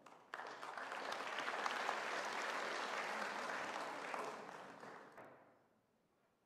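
Audience applauding. It starts suddenly and dies away after about five seconds.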